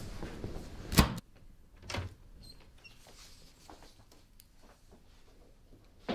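A loud single bang about a second in, like a door shutting, after which a quiet room holds a softer knock and faint rustling of paper sheets being handled on a desk.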